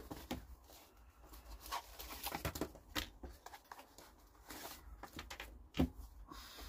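Handling noise from a fabric drawstring pouch being opened and small packaged items (cards, a small cardboard box, a plastic-wrapped remote) being taken out onto a table: light, irregular rustles and taps, with one louder tap a little before the end.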